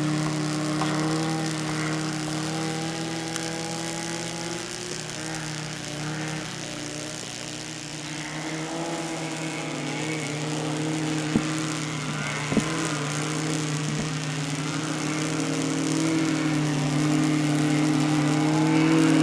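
Half-track snow rail's motor running as it is driven over snow, a steady hum whose pitch wavers as it turns. It fades somewhat around the middle and grows louder again near the end, with two sharp knocks a little past halfway.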